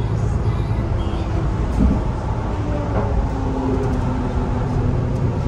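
Mercedes-Benz Citaro G articulated city bus under way, heard from inside the cabin: a steady low engine and drivetrain drone. A faint steady tone joins in about halfway through.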